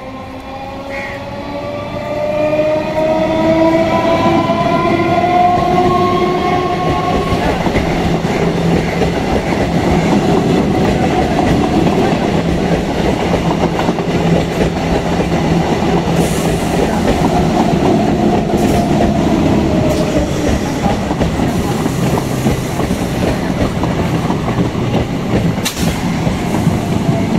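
EMU local train sounding a long multi-tone horn as it approaches, its pitch slowly rising, ending about seven seconds in. As the horn fades, the loud rumble and clickety-clack of the coaches' wheels on the rails takes over while the train runs past.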